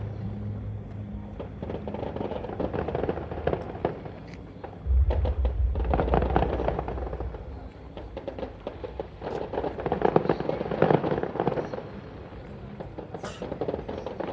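Fireworks going off: a stream of crackling pops, with a deep boom about five seconds in and a denser flurry of bursts around ten seconds in.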